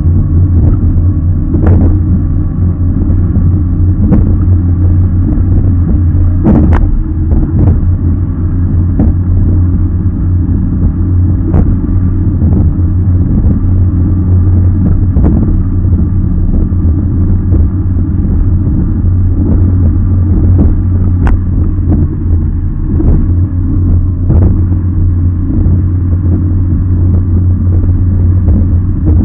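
A racing RIB's engine running hard at speed, a loud steady low drone, with irregular sharp knocks as the hull slams across the chop.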